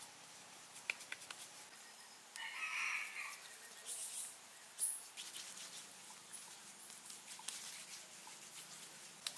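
Hands pressing and patting wet clay onto a woven stick frame: soft scattered taps and rustles. About two and a half seconds in, a bird calls for about a second, the loudest sound, followed by a couple of short high chirps.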